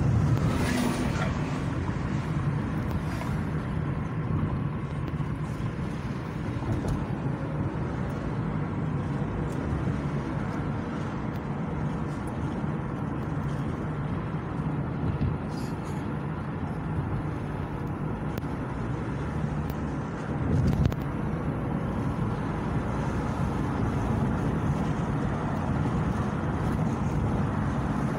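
Steady road and engine rumble heard from inside a moving car, with an oncoming semi-truck swishing past in the first second. A brief thump sounds about three-quarters of the way through.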